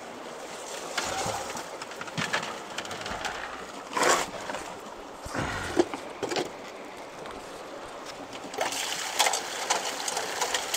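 Gold Fox Mini sluice being emptied into a plastic bucket over running stream water, with scattered knocks and rattles as the sluice is tipped and its concentrate washed out; the strongest knock comes about four seconds in. About nine seconds in, a louder hiss of water rushing through the sluice begins as its mats are rinsed.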